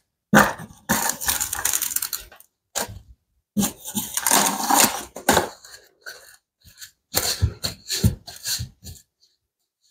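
Rustling and crinkling in three spells as a bowl of risen-to-be bread dough is covered for proofing, with a few low knocks near the end as the bowl is handled.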